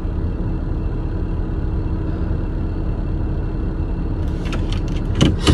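Steady low rumble inside a car cabin, the kind made by an engine running while the car stands still. In the last second or so there are several sharp clicks and rustles.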